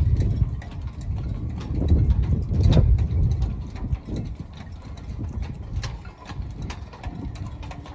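Low, uneven rumble of wind buffeting the microphone, swelling and fading irregularly, loudest about two to three seconds in, with scattered light clicks and knocks.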